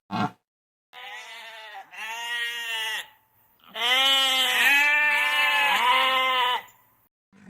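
An animal bleating: two shorter calls, then a long, wavering bleat from about four to six and a half seconds in.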